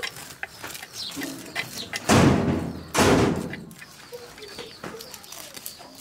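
A climbing perch being scraped against a boti blade: scratchy clicks and rasps. About two and three seconds in come two louder rushes of noise, each about half a second long.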